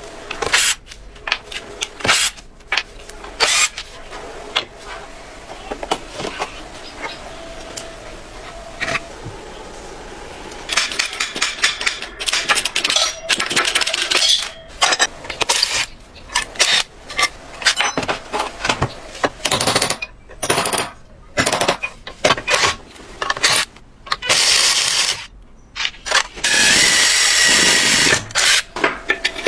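Workshop tool work on metal parts: irregular clicks, knocks and clanks, with several short runs of a power tool and a longer run near the end.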